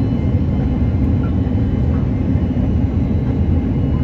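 Airbus A330-300 cabin noise in flight, heard from a window seat beside the wing-mounted turbofan: a steady, loud, deep rumble of engine and airflow with a faint thin whine above it.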